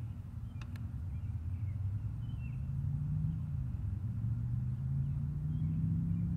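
Nearby lawn mower engines droning steadily, their pitch rising and falling a little.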